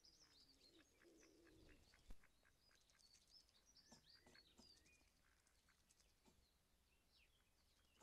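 Faint songbird chirps and calls, many short notes throughout, with scattered light clicks and one sharper click about two seconds in.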